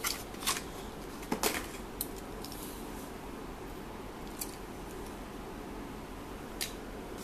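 Clear plastic blister pack of a Hot Wheels car being handled as the die-cast toy car is taken out: a run of sharp plastic clicks and crackles in the first two and a half seconds, the loudest about a second and a half in. Then two light ticks, the last near the end as the car is set down on its display.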